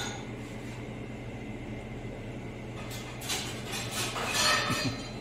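A metal fork scraping and clinking on a plate in two short bouts in the second half, over a steady low hum.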